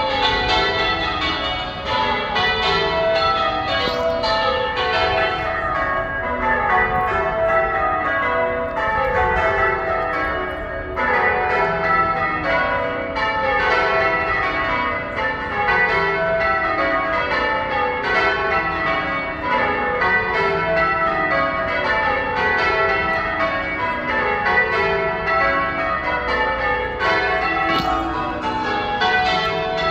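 Church bells being change-rung: a ring of tower bells struck one after another in repeating rows, each row a quick run of notes stepping down in pitch, the strikes ringing on into each other.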